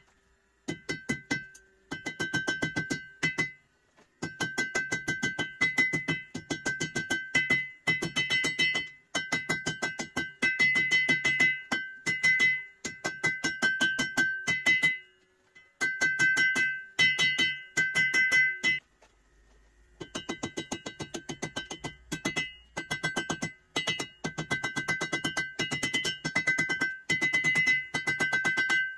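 Hand hammer striking red-hot blade steel on an anvil in quick runs of blows, several a second, with the anvil ringing between strikes and brief pauses between runs; the blade's tip is being forged out.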